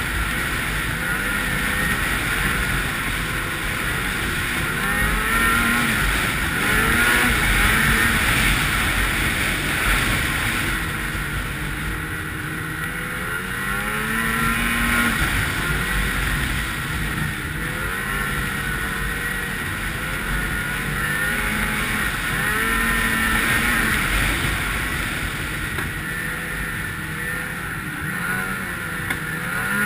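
Ski-Doo 800 two-stroke snowmobile engine running on a trail ride, its pitch repeatedly rising and falling as the throttle is opened and eased.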